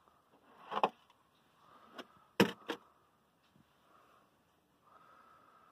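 Water tipped out of a shot-through plastic milk jug splashes onto concrete. A few sharp taps follow, the loudest about two and a half seconds in, as the recovered expanded 9mm hollow-point bullet drops onto the concrete.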